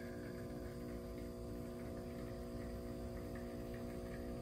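Breville Barista Express's vibration pump humming steadily while it pushes water through the coffee puck, pulling an espresso shot.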